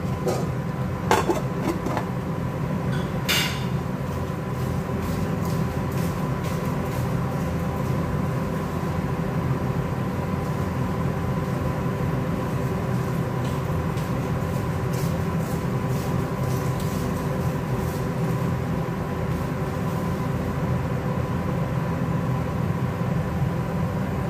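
A steady mechanical motor hum with several fixed tones, like a kitchen fan. A metal pot lid clatters about a second in and again at about three and a half seconds as it is set on the pot, with faint light ticks afterwards.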